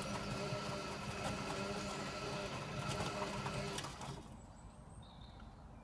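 Servis Sapphire 6055 washing machine running partway through its wash cycle: a steady mechanical hum with a higher tone and occasional knocks, which stops suddenly about four seconds in.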